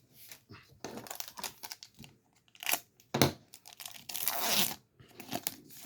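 Foil Pokémon card booster pack crinkling in the hands and being torn open, with crackles at first and a longer tear about four seconds in.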